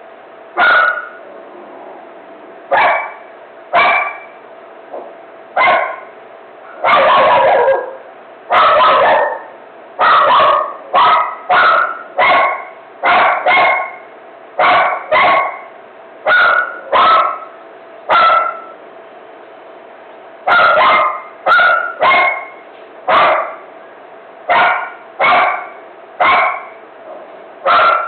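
A dog barking over and over in sharp, single barks at an irregular pace, with a couple of longer, drawn-out barks about seven and nine seconds in.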